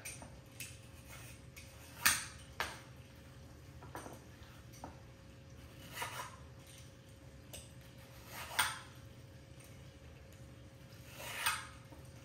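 Vegetable peeler shaving strips off a carrot over a wooden cutting board: about five separate strokes, several swelling into a short scrape that ends in a sharp knock, with light clicks and taps between.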